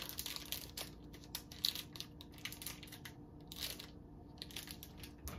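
Plastic candy wrapper crinkling and tearing as it is peeled by hand off a chocolate-coated marshmallow lollipop, in faint, irregular crackles.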